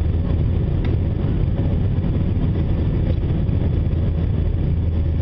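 Cabin noise inside an Airbus A321 climbing after take-off, heard from a window seat over the wing: the jet engines and rushing air make a loud, steady, even low rumble, with a couple of faint clicks.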